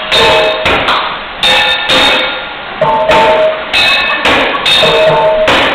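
Pots and pans played as drums with kitchen utensils: a large upturned aluminum stockpot, a frying pan and a small pot struck in a quick, uneven rhythm. Each loud clang leaves a ringing metallic tone.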